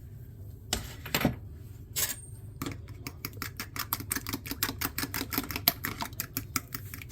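Utensil beating an egg and salt for an egg wash in a bowl, clicking against the bowl. A few separate taps come first, then fast, even clicking, about seven ticks a second, from a little under three seconds in.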